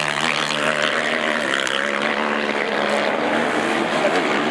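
Race quad (ATV) engine running hard on a motocross track, a steady drone whose pitch rises and falls as the rider works the throttle.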